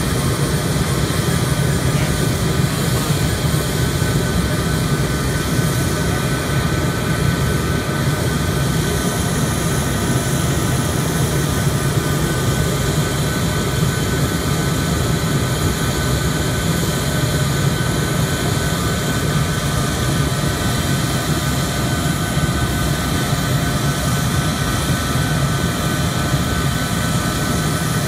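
Jet turbine running steadily at an F-4E Phantom's engine start: a loud, even roar with a steady high whine over it and no change in pitch.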